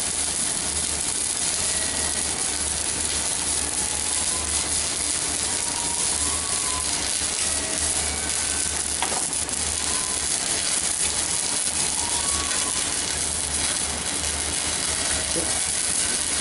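Stick-welding arc from a CNR 120 A MOSFET inverter welder burning a 4 mm electrode: a steady, dense crackling sizzle, with a low pulsing hum underneath.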